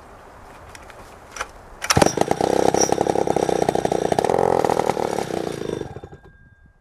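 Burns 106 two-stroke chainsaw engine, fed from an external fuel source, catching suddenly about two seconds in, running for about four seconds, then dying away. It is the saw's first run, and it will not keep running.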